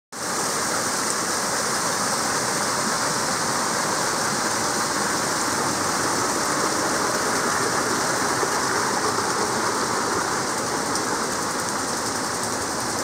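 Water falling and splashing steadily down a rock face: a small waterfall.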